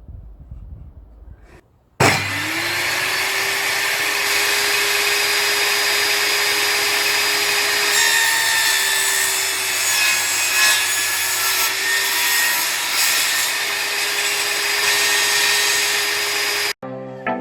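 Table saw switched on, its motor spinning up within a second to a steady whine, then running loud while the blade cuts wood. It cuts off abruptly near the end, and music begins.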